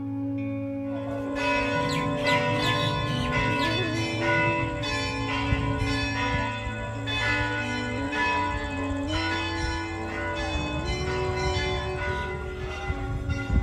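Bells ringing rapidly and continuously in a music track, over a steady low drone and a slow melody that steps up in pitch. The bells come in about a second in.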